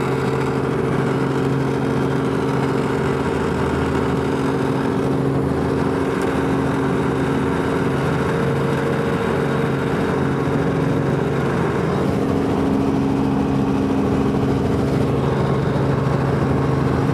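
Helicopter turbine engine and rotor running, a loud steady drone with several held tones.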